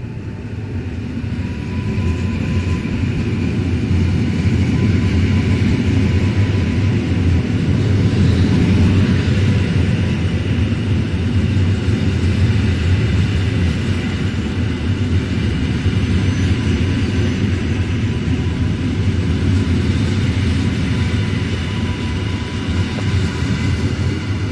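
Two coupled EN57AKM electric multiple units running past along a station platform: the sound of the wheels and motors grows over the first few seconds, is loudest as the train draws level, and goes on steadily as the cars pass, with a faint steady whine over it.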